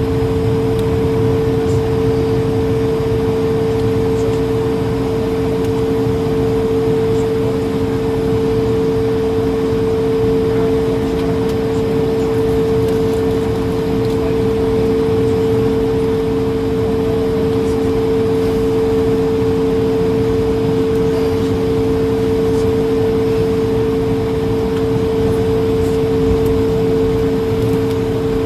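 Steady noise of an Airbus A220-300 with its engines running: an even rumble and hiss with two constant, unchanging tones, and no rise in pitch or level.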